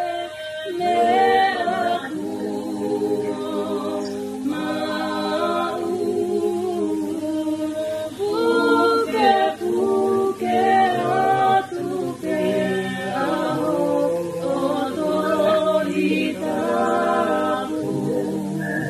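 A small group of voices singing a cappella in harmony, a woman's voice carrying the melody over lower voices, in sustained phrases with short breaths between them.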